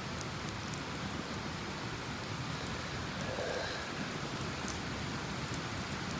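Wood campfire burning strongly: a steady hiss with scattered small crackles and pops.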